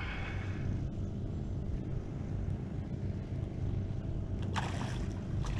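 A steady low motor rumble, with a brief rush of noise about four and a half seconds in.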